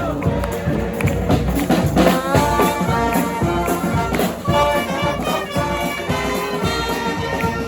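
Street brass band playing an up-tempo tune, trumpets and trombones together over a steady beat, with a few sliding notes about two seconds in.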